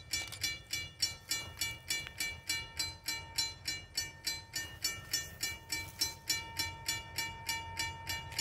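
Railroad grade crossing bell ringing steadily at about three to four strikes a second, warning of an approaching train.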